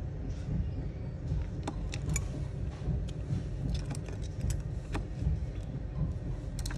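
Light clicks and taps of small phone parts being handled as an iPhone 11 is opened, scattered through the first five seconds and again near the end, over a steady low background rumble.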